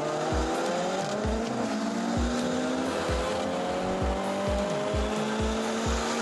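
Nissan S13 Silvia's engine accelerating hard on track, heard from inside the cabin. Its pitch climbs, drops back about halfway through at a gear change, then climbs again. Background music with a steady beat plays over it.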